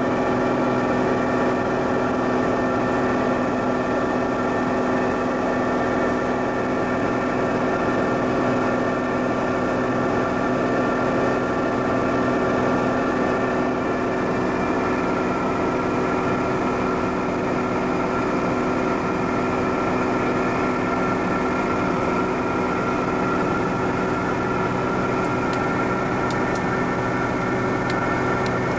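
Steady cabin drone of a Piper PA-46 Malibu Mirage in cruise flight, heard inside the cockpit. Its turbocharged six-cylinder Lycoming TIO-540 engine and propeller run at an even pitch of about 2500 rpm.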